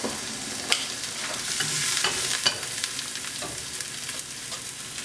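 Sliced mushrooms frying in sesame chili oil in a hot pan, sizzling steadily while being stirred, with a few sharp clicks of the utensil against the pan.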